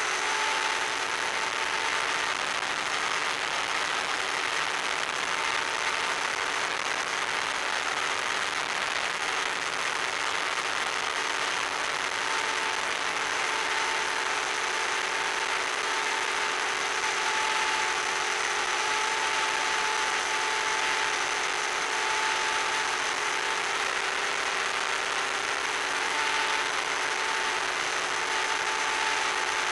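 Electric RC plane's motor and propeller running steadily in flight at about ten thousand rpm, heard from on board as a constant whir with a strong rushing hiss.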